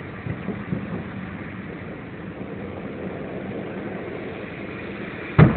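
Steady hum of idling car engines in traffic with a few faint thuds, then near the end one loud boom of an aerial firework shell bursting at a distance.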